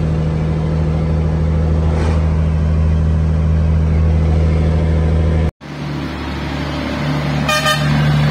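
Scania 112 truck's straight-six diesel running steadily under a heavy load of about 44 tonnes of grain, heard from inside the cab. About two thirds of the way through, the sound cuts off abruptly and switches to the truck's engine heard from the roadside as it drives past, with a brief high tone near the end.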